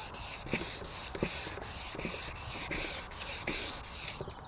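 Hand sanding block with plastic-backed 3M abrasive rubbed back and forth over a varnished wooden board: a rhythmic hiss of quick strokes, about three a second, that stops near the end. The cured varnish is being flatted before a final satin coat.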